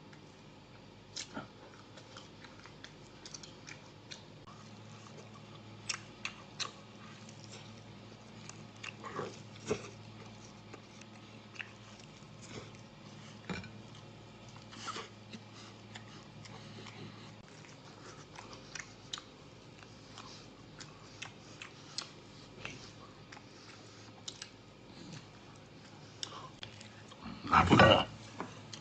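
A person chewing and biting into a roast leg of lamb held in the hands: short, wet mouth clicks and smacks scattered throughout. A louder burst of noise comes about a second before the end.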